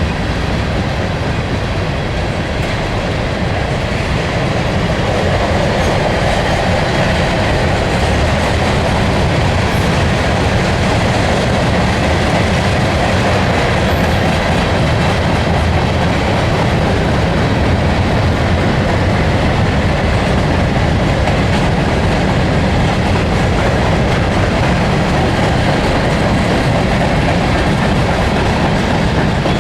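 A train's cars rolling past, a loud, steady rumble of steel wheels on rail that holds without a break.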